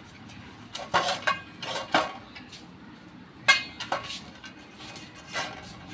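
Pastry brush spreading oil inside an aluminium cake tin, with a scatter of light clinks and knocks as the brush and tin strike each other at irregular moments; the sharpest knock comes a little past halfway.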